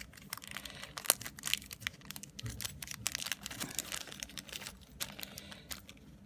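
Small plastic accessory bag crinkling and rustling as it is handled and opened, in a quick irregular crackle.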